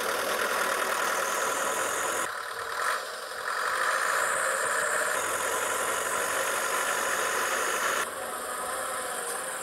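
Steady whirring of a miniature model combine harvester's small motors as it drives on its tracks off a model truck. The sound dips briefly about two and a half seconds in and drops again near the end.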